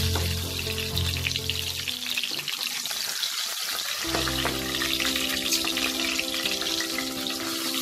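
Whole climbing perch (koi fish) frying in hot mustard oil: a steady sizzle with scattered crackling pops as the browned fish are lifted out of the oil.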